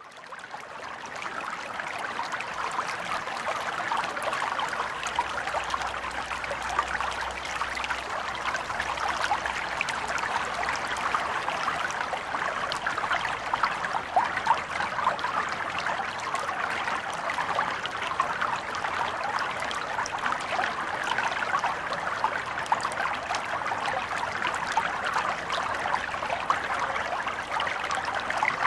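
Stream water flowing steadily, a continuous trickling with many small splashes. It fades in from silence over the first second or two.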